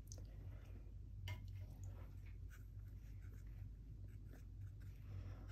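Faint scratching of a paintbrush stroking across watercolor paper, with a few light ticks, over a steady low hum.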